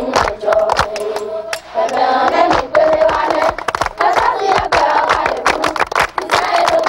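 A group of children singing together in unison, with steady hand-clapping throughout.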